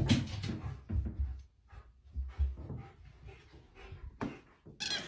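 Phone handling noise and soft knocks from someone moving about, with a sharper click about four seconds in.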